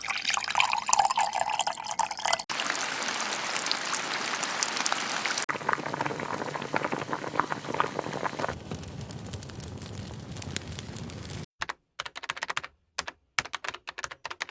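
A run of short sound-effect clips played back to back, each cut off suddenly after about three seconds. They are mostly water-like pouring and splashing sounds, and the last is broken into short choppy bits.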